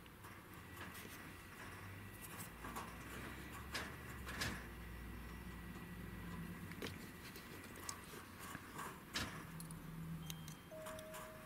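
Faint grooming sounds from a chinchilla's fur being worked: a steel comb held in the fur and small scissors snipping out a fur mat, heard as scattered sharp clicks over a low rustle.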